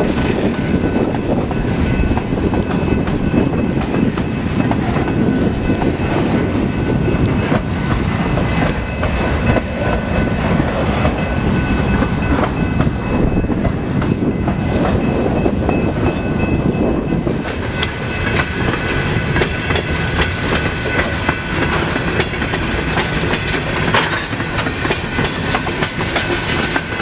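A loaded freight train's boxcars and flatcars rolling past, wheels clacking over the rail joints with a steady rumble. A few steady high-pitched tones ring over it, louder in the second half.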